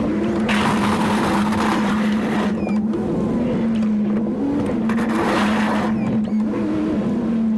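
Pickup truck engine running steadily with a plow mounted, with two louder rushes of hissing noise, about half a second in and again about five seconds in.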